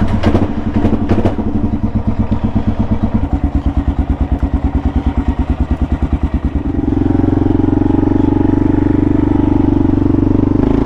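Kawasaki KLR650's single-cylinder four-stroke engine running at low revs with distinct, evenly spaced firing pulses; about seven seconds in the revs rise to a steadier, higher note.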